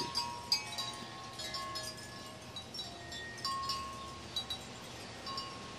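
Wind chimes ringing in the breeze: irregular light strikes throughout, their clear tones overlapping and dying away.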